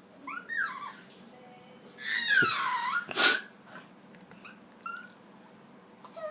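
A pet animal vocalising in short, high, gliding whines. About two seconds in comes a longer cry that dips in pitch and rises again, followed by a sharp burst of breath, then a few faint small sounds and a brief rising cry at the end.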